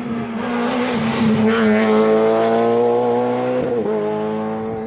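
Rally car passing at speed on a closed stage, its engine pulling hard at high revs, growing louder to a peak about two seconds in, then a brief dip in pitch near the end before it runs on and fades away.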